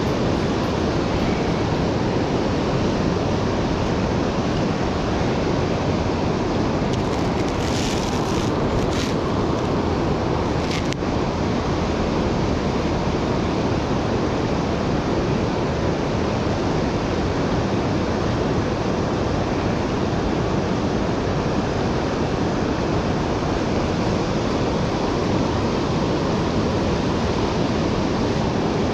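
Steady rush of fast-flowing river water churning through a shallow stretch.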